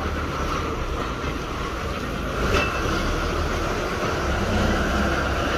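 Steady low rumble of a running vehicle, with a constant higher hum above it and one short click about two and a half seconds in.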